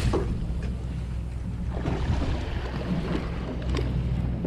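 A boat's engine running with a steady low hum, over wind and water noise.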